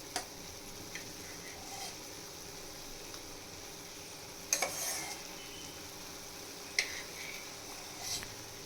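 A spoon clinking and scraping against a bowl and pot about five times, loudest as a short cluster midway, while egg white is spooned into the soup. Under it, a steady faint hiss of the thickened soup simmering on the stove.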